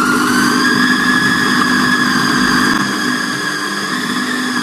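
Electric food chopper's motor running at full speed, blades chopping mutton mince with spices and a bread slice: a steady whine that rises slightly at first as the motor spins up, then cuts off abruptly near the end.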